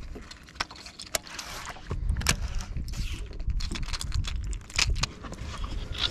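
Sharp clicks and light metallic clinks of a baitcasting rod, reel and swimbait hooks being handled on a bass boat deck. A low rumble comes in about two seconds in and carries on under the clicks.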